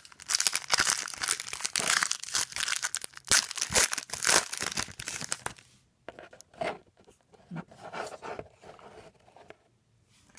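Foil trading-card pack wrapper being torn open and crinkled, dense and loud for about six seconds, then softer, scattered crinkles.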